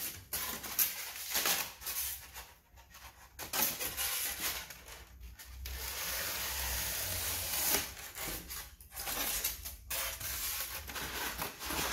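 A white foam sheet scraping and rubbing against cardboard as it is trimmed with a knife and pushed down into a cardboard box. The scratchy strokes are irregular and broken by short pauses.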